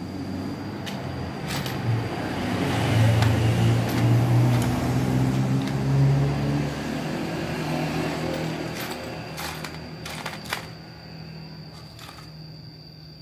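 A motor vehicle's engine close by, swelling to its loudest a few seconds in and then fading away, as a vehicle passing does. A few light clicks of small metal carburettor parts being handled come through near the start and near the end.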